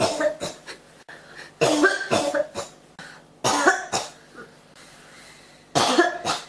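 A person coughing in repeated fits: four bouts, each a quick run of several hacking coughs, with short pauses between them.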